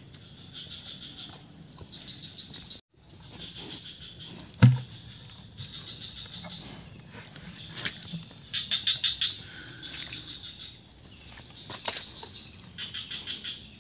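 Steady high-pitched insect drone with several short trains of rapid chirps. One dull thump about four and a half seconds in is the loudest sound.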